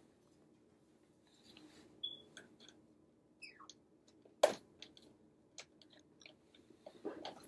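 African grey parrot chewing and biting at an object: scattered small crunches and clicks, a few short high chirps, and one sharp louder click about four and a half seconds in.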